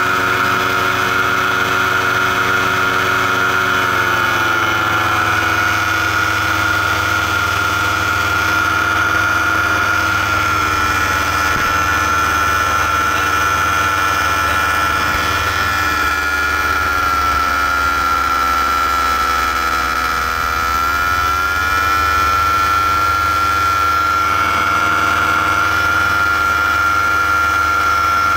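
Paramotor engine and propeller running steadily in flight, heard up close on the pilot's rig. The pitch eases down about four seconds in, then dips with the throttle and climbs back up about twenty seconds in.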